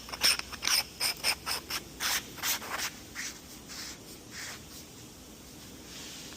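Repeated short rubbing or scraping strokes, two or three a second, fading out after about three seconds.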